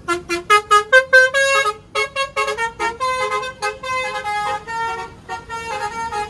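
Toy city bus's electronic sound chip playing a beeping horn-like tune: a run of quick short notes, then slower, longer held notes at changing pitches.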